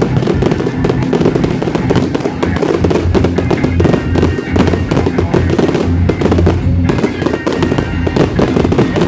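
Fireworks crackling and popping in rapid, dense volleys, over loud music with a heavy bass.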